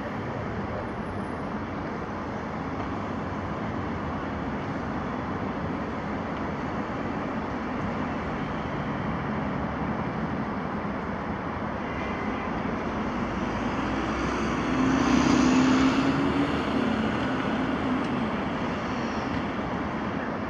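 Jet engines of an Airbus A320-family airliner running on the runway, heard from a distance as a steady rushing noise. The noise swells about fifteen seconds in, with a low hum and a brighter hiss, then eases again.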